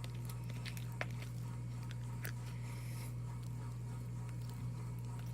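A steady low hum of background noise, with a few faint sticky clicks and squelches from slime being kneaded by hand.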